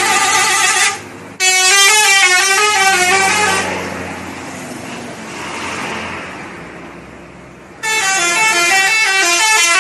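Indonesian bus 'telolet' horn, a modified multi-tone horn, playing a quick tune of rapidly changing notes in three loud blasts: one lasting about a second, a second of about two seconds soon after, and a last one near the end. Quieter street noise fills the gap between.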